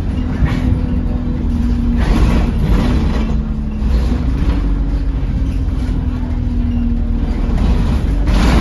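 Alexander Dennis Enviro 200 bus driving, heard from inside the saloon: a steady diesel engine drone with a humming transmission tone that sags in pitch about two seconds in and rises again about four seconds in. A few knocks and rattles from the body come through.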